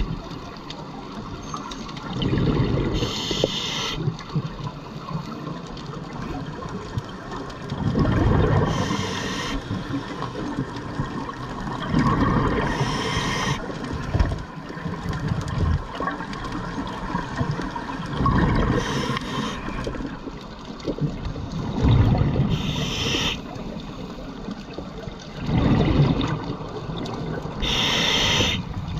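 Scuba diver breathing through a regulator underwater, a breath about every five seconds: each cycle has a hiss from the regulator and a burst of rumbling exhaust bubbles. A steady wash of water noise runs underneath.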